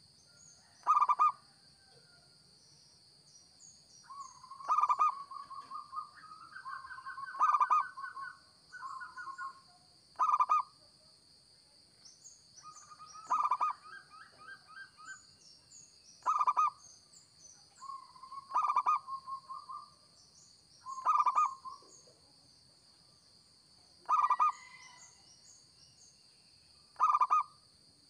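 Zebra dove (perkutut) cooing: loud, short song notes about every three seconds, with softer rolling trills between them.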